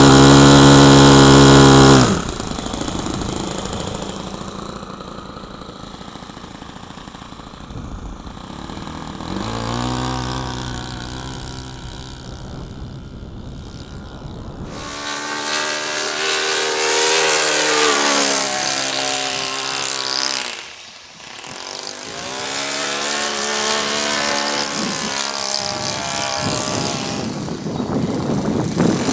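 Small model airplane diesel engine running: loud and close at first, then it drops off sharply and carries on farther away, its pitch rising and falling as it is throttled. About halfway through it grows louder and brighter, with a wavering pitch and one brief dip.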